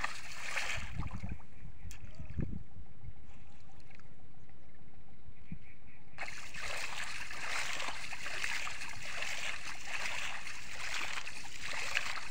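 Shallow water splashing and sloshing as a cast net is hauled in by its rope. The higher splashing hiss fades for several seconds about a second in, then comes back strongly around the middle.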